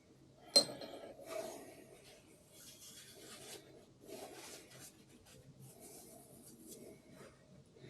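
A sharp click about half a second in, then irregular rubbing and scraping of tools and parts on a diesel cylinder head during valve checks.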